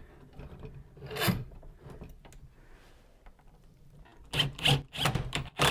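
Handling noise as a bar clamp is set and tightened against the wooden trunk: rubbing and scraping of metal on wood, with a short louder scrape about a second in and a cluster of knocks and scrapes near the end.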